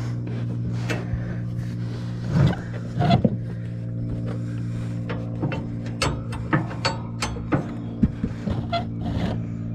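Light metallic knocks and clicks from a Cub Cadet LT50 riding mower's deck and lift bracket as the mower is rolled back to line up the deck pin, over a steady low hum. The knocks come thickest in the second half.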